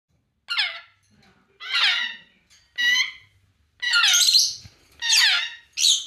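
African grey parrot calling: six loud squawks about a second apart, each sliding down in pitch. The fourth call is longer than the others.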